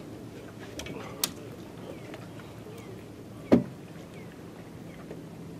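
A sharp knock on the aluminum boat's hull about three and a half seconds in, with a lighter tap about a second in, over a low steady background noise.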